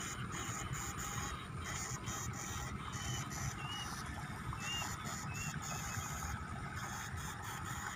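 Backpack eel electroshocker giving a high electronic whine that switches on and off in short, irregular spells as current is sent through its two probe poles, over a steady low rumble. A few short high chirps come about halfway through.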